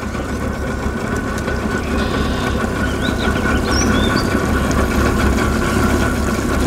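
Outboard motor of a Tracker Targa aluminum fishing boat running under way, growing gradually louder as the boat picks up speed, with a steady rush of water and wind.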